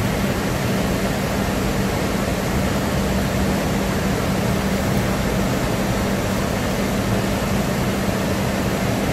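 Roar of a flood-swollen stream rushing in white water through a rocky gap, steady and unbroken, with a low steady hum running through it.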